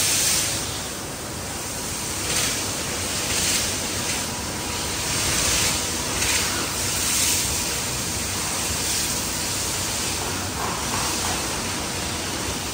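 Steady loud hiss, like spraying or rushing air, that swells and eases about once a second.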